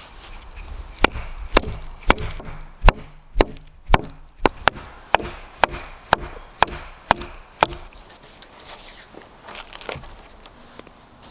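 An axe chopping wood: a run of about a dozen sharp strikes, roughly two a second, that stops about eight seconds in.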